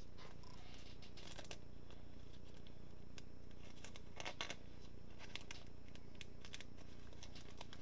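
Faint scattered rustles and light ticks from handling trading cards and their packaging, the clearest a little past the middle, over a steady low hum.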